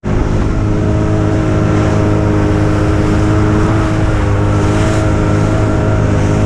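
Small fishing boat's motor running steadily at speed, with water rushing and spraying along the hull.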